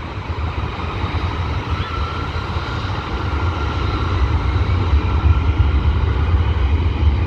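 Airbus A319's twin jet engines spooling up for the takeoff roll: a steady low rumble with a faint whine above it, growing gradually louder.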